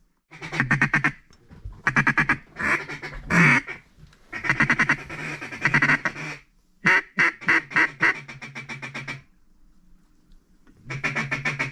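Duck call blown close to the microphone in mallard hen quacks. It sounds in runs of quick, evenly spaced quacks, several in a row, then pauses, and starts another run near the end.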